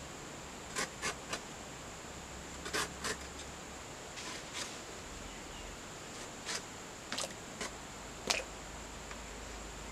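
Young jackfruit being peeled and sliced against a fixed upright blade: short, sharp cutting clicks at irregular intervals, about a dozen in all, over a faint steady high hiss.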